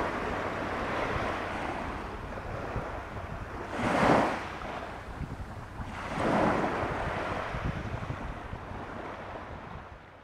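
Small waves washing onto a sandy beach, with two louder rushes of breaking surf about four and six and a half seconds in, over a low rumble of wind on the microphone. The sound fades near the end.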